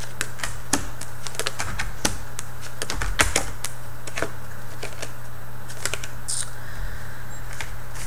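A series of irregular light clicks and taps, with a steady low hum underneath.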